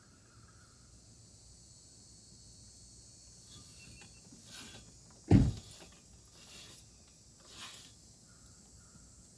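A single heavy, low thump a little past the middle, with a few short rustling noises before and after it, over a steady faint high hiss.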